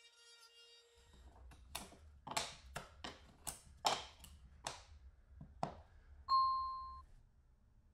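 Wooden and MDF pieces knocking and clicking as they are handled and fitted into a square hole in an MDF board: about ten sharp, irregular knocks. A single short, clear ding rings out about six seconds in. A steady pitched tone stops about a second in.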